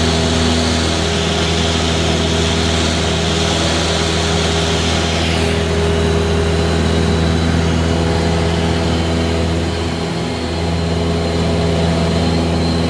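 Cessna 172's piston engine and propeller droning steadily in cruise flight, heard inside the cabin with the rush of air. The hiss of the airflow lessens about halfway through.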